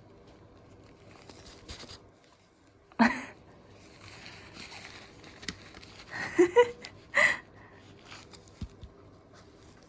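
A cat giving short meows: one about three seconds in, then a quick pair rising in pitch and a last one a little later.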